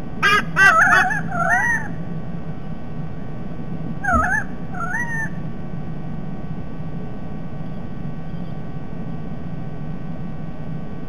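White-bellied sea eagle giving goose-like honking calls: a quick run of notes in the first two seconds and two or three more around four seconds in, over a steady low hum.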